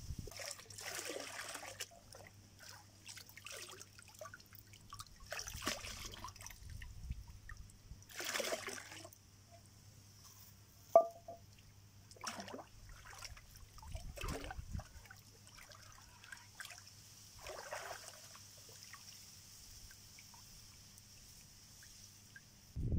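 Water trickling and sloshing in short, separate spells, with one sharp click about eleven seconds in.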